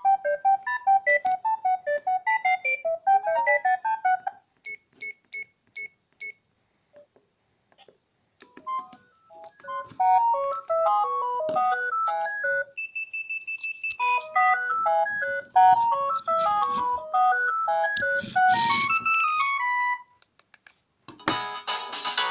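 A basic mobile phone playing its simple single-note ringtone melodies one after another, each a quick run of short notes with a pause between tunes. Between them come five short identical beeps and a held high tone, and near the end a fuller, many-note ringtone starts.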